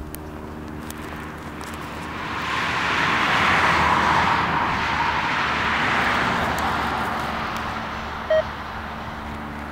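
A car passing on the road close by: tyre and road noise swells to a peak about four seconds in, then fades away. A brief sharp high blip sounds near the end.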